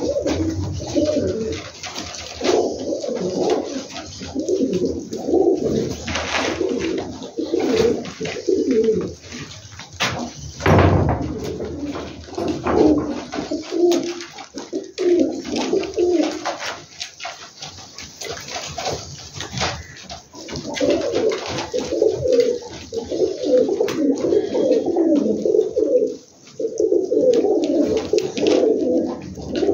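Domestic pigeons cooing, many at once and overlapping, in bouts that swell and ease off, in a small brick-walled loft. A few brief sharp noises cut through the cooing, the loudest about eleven seconds in.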